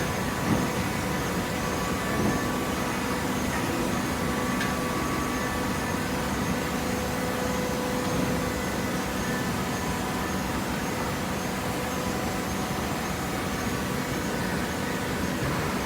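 Hydraulic paper baler running steadily, a continuous machine hum with a few steady tones in it and a couple of faint knocks in the first few seconds.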